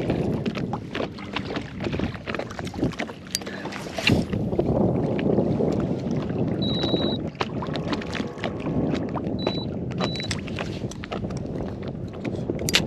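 A small boat moving through water, with irregular splashing and knocking against the hull and wind on the microphone. A quick run of short high beeps comes about halfway through, then two more single beeps a few seconds later.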